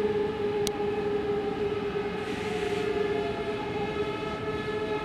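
ICE T electric multiple unit's traction motors and converters whining as the train slows into the station, a steady multi-note whine with one tone slowly falling in pitch. A single click comes early, and a short hiss is heard about two seconds in.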